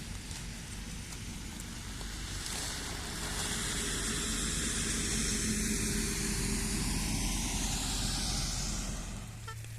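A motor vehicle's engine running with a steady low hum, growing louder a few seconds in and dropping away near the end.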